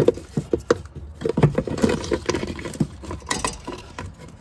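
Irregular clicks, knocks and rattles of a Ram 1500's metal-cased PCM (engine control module) being worked loose by hand and pulled off its plugged-in wiring connectors.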